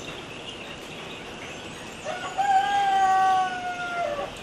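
A rooster crowing once, about two seconds in: a short rise into a long held call that drops off at the end. Under it is a steady outdoor background hiss with faint bird chirps.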